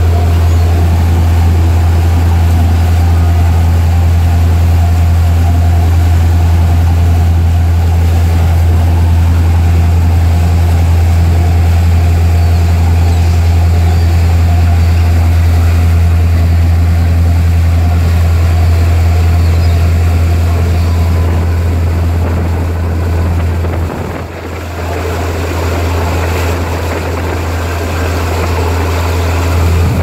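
Tour boat's engine running under way with a loud, steady low drone, heard from the stern deck. The sound dips briefly about three-quarters of the way through.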